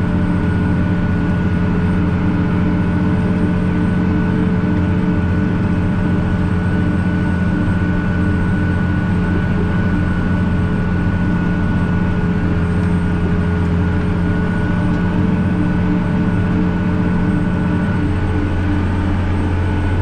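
Case IH Quadtrac tractor's engine running steadily, heard from inside the cab while the tractor pulls a disc air drill through the field. A thin steady whine sits over the low drone.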